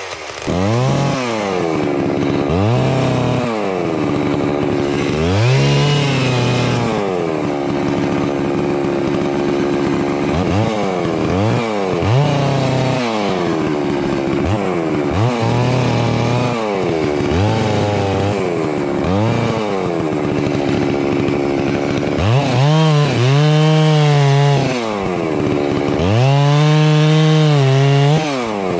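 Large two-stroke chainsaw revved up and back down again and again, roughly every two seconds, while limbing and cutting felled pine limbs. Near the end it is held at a steady high speed for two longer stretches.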